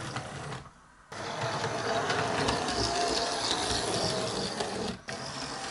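Model railway locomotive running along the track: the steady whirr of its small electric motor and gears, with wheels rattling on the rails. The sound cuts out for about half a second shortly after the start.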